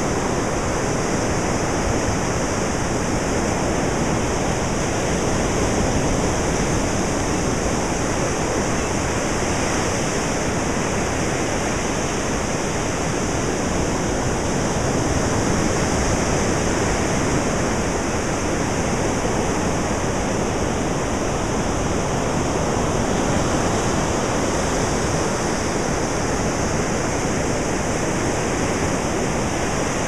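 Ocean surf: a steady, unbroken wash of waves, swelling gently a few times.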